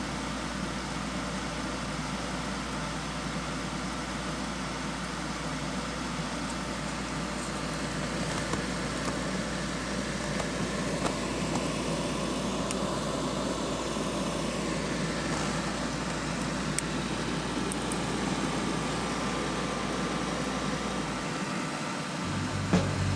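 Computer fans running at a steady speed: the OCZ Vendetta 2 CPU cooler's fan together with an extra 120 mm case fan and a GTX 275 graphics card's fan, giving an even rush of air noise.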